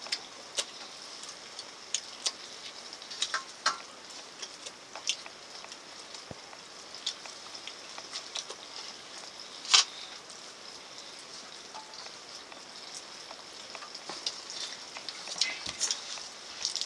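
Scattered light clicks and clinks of hands and food against steel eating plates, over a steady high hiss; a brief cluster of knocks near the end.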